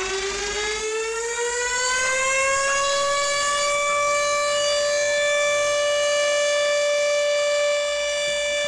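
Fire station siren winding up, its pitch rising over the first few seconds and then holding one steady tone, sounded at zero hour in salute for Firefighters' Day.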